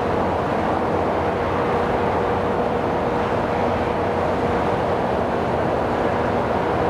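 Diesel train locomotive running steadily: a constant rumble with a steady mid-pitched whine.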